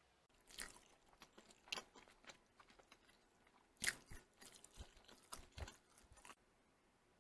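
A person eating: soft clicks and short crunchy chewing noises in an irregular series that stops about six seconds in.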